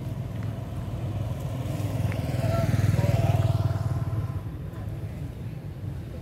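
A motor vehicle engine passing by, growing louder to a peak about three seconds in and then fading away.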